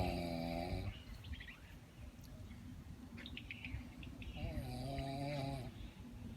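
A woman snoring, two long, wavering snores: one just at the start and another about four and a half seconds in, with faint high chirps in between.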